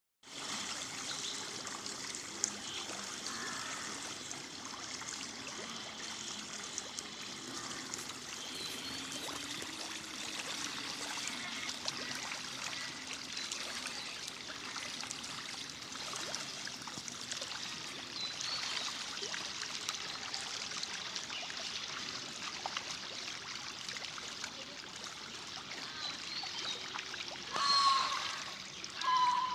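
A shoal of fish feeding at the surface of a pond: a steady patter of many small splashes. Near the end, two short, louder pitched sounds rise above it.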